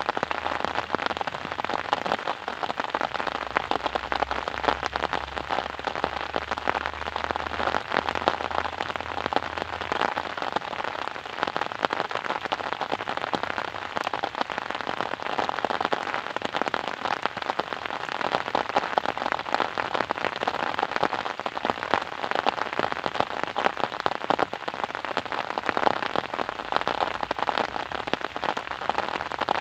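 Steady rain falling and pattering on a surface, a dense even hiss of many fine drops.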